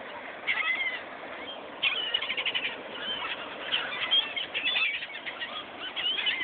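A flock of seagulls calling over one another in short, repeated squeals while wings flap, as the gulls crowd and scramble for thrown food.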